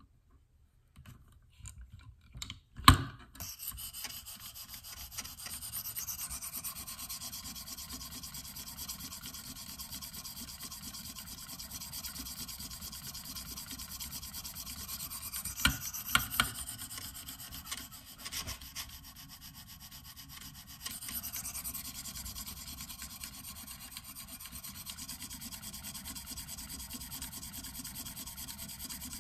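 Hone on a KME guided sharpener scraping repeatedly along the steel edge of a Benchmade Mini Barrage knife. A sharp knock comes about three seconds in, two clacks come near the middle, and the strokes pause briefly before carrying on.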